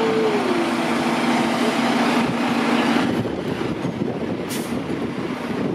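2016 KME Severe Service Predator fire engine's diesel engine running steadily, with a short high hiss about four and a half seconds in.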